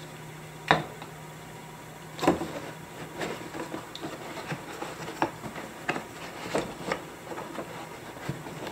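Cardboard box and moulded pulp packaging being handled as the metal detector's control box and upper shaft are worked free of the insert: a sharp tap about a second in, a louder knock a little after two seconds, then a run of small scrapes and rustles.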